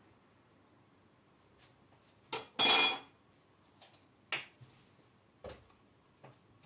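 Glass jar and its lid being handled: a sharp clink about two seconds in, then a brief loud clattering rattle, followed by three lighter knocks.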